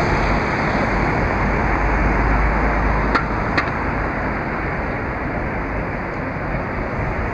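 Steady city road-traffic noise from passing cars and buses, with two sharp clicks about half a second apart near the middle.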